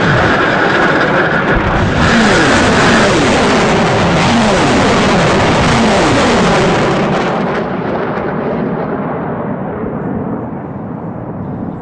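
Uragan 220 mm multiple rocket launcher firing a salvo: rockets roar away one after another, each with a falling pitch as it departs. After about seven seconds the roar loses its high end and fades as the rockets recede.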